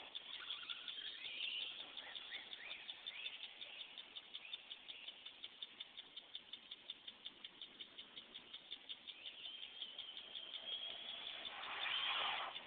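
Traxxas Slash VXL RC truck's brushless electric motor whining and rising in pitch as it accelerates down the street. Through the middle a rapid, regular ticking runs at about five a second. Near the end the motor whine comes loud and close as the truck speeds back past.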